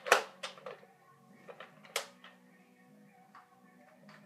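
Toy foam-dart blaster being handled: a click and knock right at the start, a sharper click about two seconds in and a few light ticks between, over a faint steady hum.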